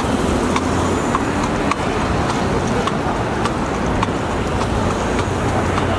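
Carriage horse's hooves clip-clopping on asphalt at a walk, sharp clops about twice a second, over steady city traffic noise.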